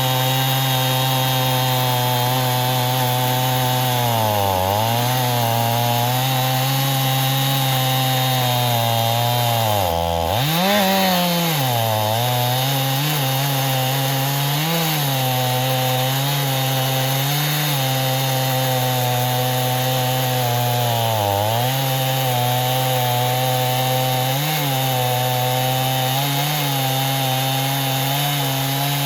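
Chainsaw mounted in an Alaskan chainsaw mill running at high revs while ripping a log lengthwise. Its engine pitch dips and recovers several times as the chain bogs under load in the cut, most deeply about ten seconds in.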